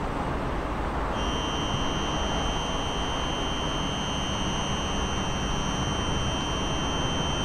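A steady high-pitched buzzer-like tone starts about a second in and holds, over the continuous low rumble of a train.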